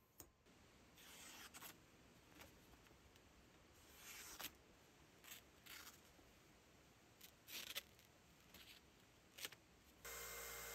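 A freshly sharpened knife blade slicing through sheets of paper to test its edge, each cut a short, soft papery rasp, about a dozen of them spread unevenly. A steady hiss starts suddenly near the end.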